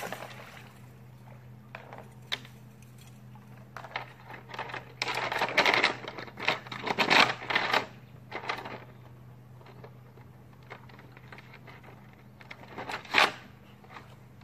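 Scraping and rustling of someone handling gear close to the microphone, with a cluster of louder scrapes in the middle and one sharp scrape near the end, over a steady low hum.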